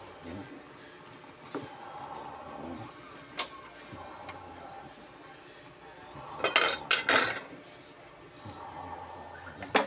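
A wooden spatula stirring vegetables in a pot, with sharp knocks and clinks of utensils against cookware: one about three and a half seconds in, a quick run of several around six and a half to seven seconds, and one more near the end.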